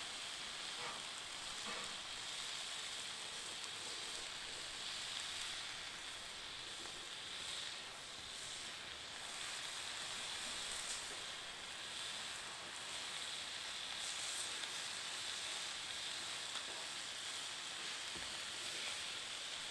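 Strips of steak sizzling steadily on a Blackstone flat-top griddle, an even frying hiss.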